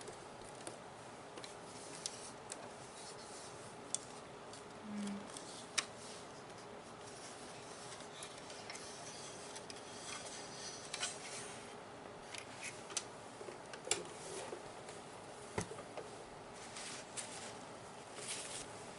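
Close-miked handling sounds: scattered small clicks and taps with short stretches of soft rubbing and rustling.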